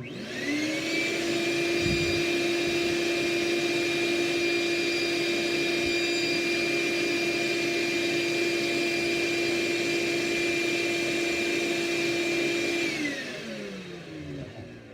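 Ridgid WD6000 6-gallon wet/dry shop vac switched on, its motor spinning up within half a second to a loud, steady whine. About 13 seconds in it is switched off, and the pitch falls as the motor winds down.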